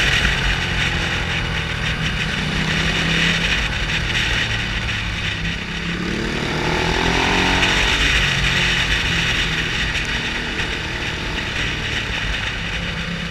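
Motorcycle engine running under heavy wind noise on an onboard camera. About six seconds in, the engine note rises as the bike accelerates, then settles.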